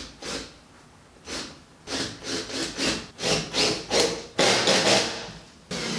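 Wooden strapping scraping against wood in short repeated strokes: one at the start, another about a second and a half in, then quick strokes a few a second from about two seconds in.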